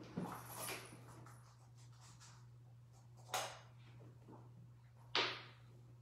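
Kittens playing on a wooden floor among toys: a few light knocks and rustles, the loudest a sharp knock about five seconds in, over a steady low hum.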